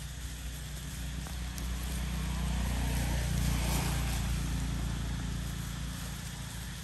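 A motor vehicle passing by, its engine noise swelling to a peak about halfway through and then fading away.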